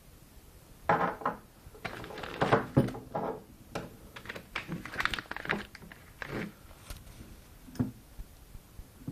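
Irregular clinks, knocks and rattles of hard objects being handled, like tools or metal parts, with one last knock near the end.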